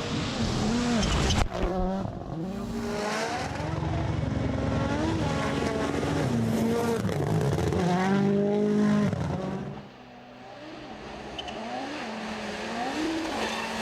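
WRC Rally1 rally cars' turbocharged engines revving hard, the pitch climbing and falling again and again with gear changes and lifts. A sharp bang comes about a second and a half in. The engine sound falls away near ten seconds in, then rises again as a car comes back on the throttle.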